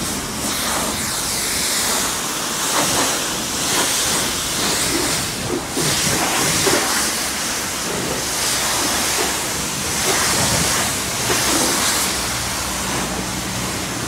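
High-pressure spray from a self-service car wash wand hitting a car's body: a steady hiss that swells and eases again and again.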